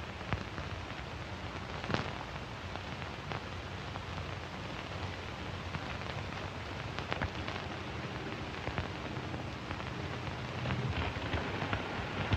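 Hiss and crackle of an old 1940s film soundtrack, with a low hum and scattered irregular pops and clicks.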